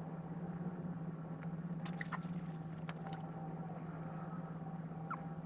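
Used engine oil from a Detroit Diesel Series 60 oil pan trickling in a thin, steady stream into a drain pan, over a steady low hum, with a few faint ticks.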